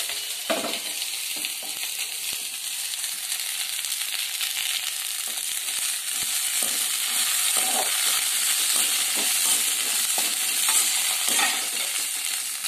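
Cut okra sizzling as it sautés in hot sesame oil in a metal kadai, being fried dry so it won't turn slimy. A slotted metal spoon scrapes and knocks against the pan a few times as it is stirred.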